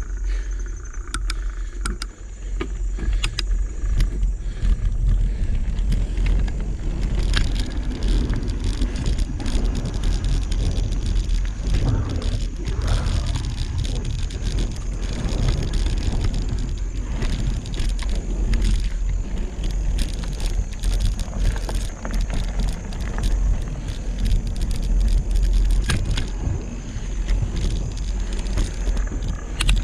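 Mountain bike rolling along a dirt trail, its chain and frame rattling and clicking over bumps over a steady low rumble.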